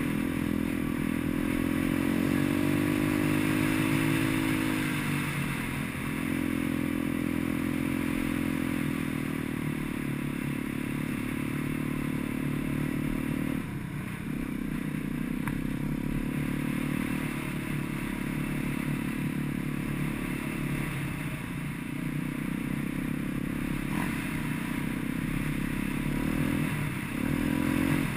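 Single-cylinder four-stroke engine of a Gio X33 140 cc pit bike running steadily at riding speed, heard from on the bike. Its note dips briefly in pitch and recovers four times.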